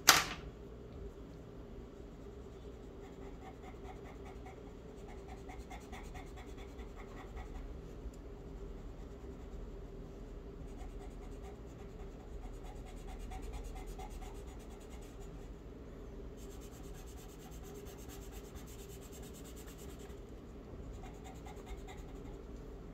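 Pencil scratching across drawing paper in a series of quick strokes as lines are drawn, over a steady low hum.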